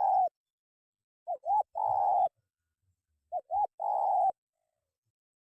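Spotted dove cooing: the tail of one phrase, then two full 'ter-ku-kuur' phrases about two seconds apart, each two short notes and a longer drawn-out note.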